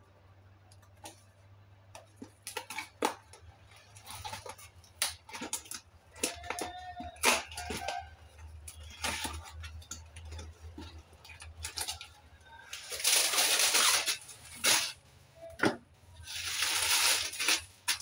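Cardboard biscuit carton being handled, then plastic-wrapped Dark Fantasy Choco Fills packets crinkling and clicking as hands dig into the box. There are two longer spells of rustling about thirteen and seventeen seconds in as the packets are tipped out onto the countertop.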